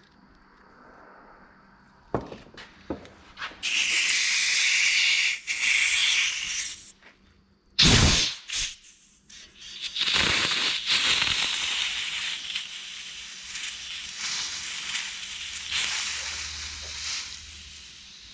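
An aerosol can of penetrating oil spraying in a few-second hiss. About eight seconds in comes a sharp burst of compressed air, then a long hiss from a rubber-tipped air nozzle pressed to a port on a tractor power steering box, slowly fading as the resealed steering cylinder is pressure-tested for leaks.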